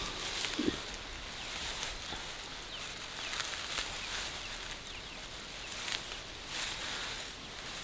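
Grass and foliage rustling, with several louder swishes at uneven intervals, and a brief low sound a little over half a second in.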